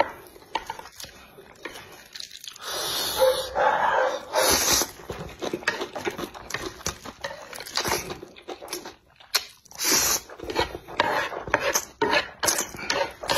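A man slurping up mouthfuls of chewy, sauce-coated instant noodles in long sucking slurps, then chewing wetly with quick lip-smacking near the end.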